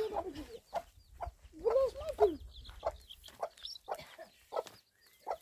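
A hen clucking in short calls with a longer, bending call about two seconds in as it is caught and carried by hand, with scattered scuffs and knocks.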